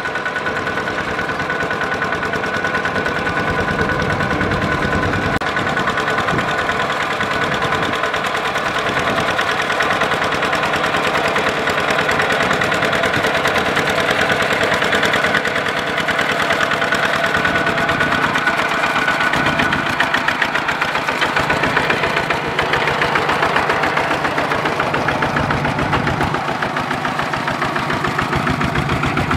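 Kubota RT120 walk-behind tractor's single-cylinder diesel engine running steadily under load, with a rapid, even chugging beat, as its steel cage wheels pull it through flooded paddy mud.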